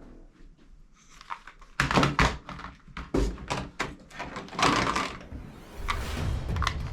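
A quick series of sharp knocks and clacks, about a dozen over three seconds, after a quiet second. Music fades back in near the end.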